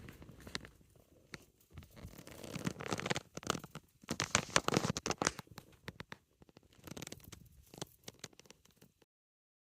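A mouse scrabbling and rustling, with irregular bursts of scratching and crackly clicks, loudest a few seconds in; the sound cuts off abruptly near the end.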